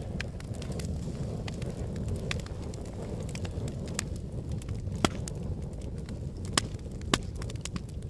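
Wood fire burning in a fireplace: a steady low rush of flames with scattered sharp crackles and pops, a few louder pops in the second half.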